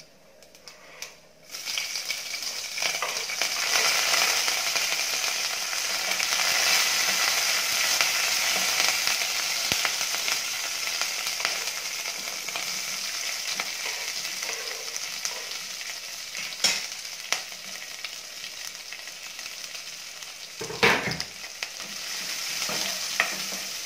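Green chillies and curry leaves hit hot oil with spluttering mustard seeds in an aluminium kadai, setting off a sudden loud sizzle about a second and a half in that slowly dies down. Near the end, chopped onions are tipped in with a short clatter.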